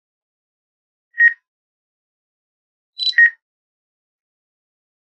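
Short electronic alert beeps from a DJI drone controller's flight app, one about a second in and another about three seconds in, the second just after a higher, briefer chirp.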